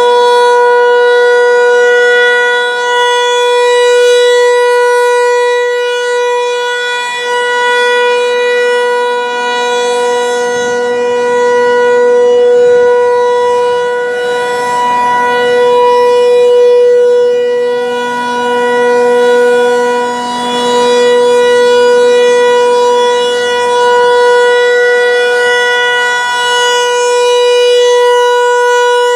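Federal Signal 508 dual-tone outdoor warning siren sounding the steady Alert signal: two held pitches a minor sixth apart, loud, swelling and fading every few seconds as the siren head rotates.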